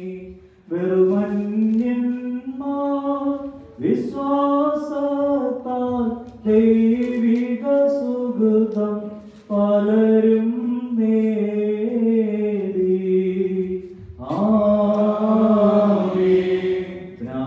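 Orthodox liturgical chant: voices singing one slow melodic line in phrases of a few seconds with short breaks, fuller about fourteen seconds in.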